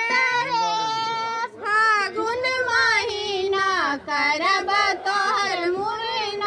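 A woman singing a traditional mundan (head-shaving) folk song in a high voice, unaccompanied, with a few brief breath pauses.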